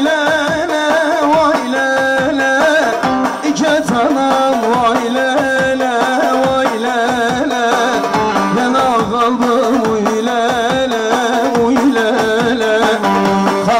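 Turkish folk music: an ornamented, wavering melody over a steady drum beat.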